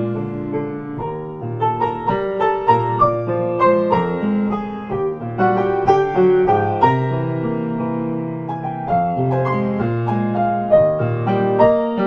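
Background music: a piano playing a gentle melody of struck notes over held lower notes.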